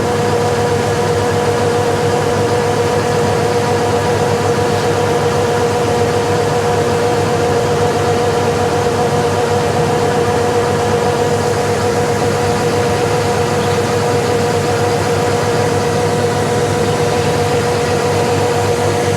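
Rice combine harvester running steadily, a constant engine hum with a steady whine on top, neither rising nor falling.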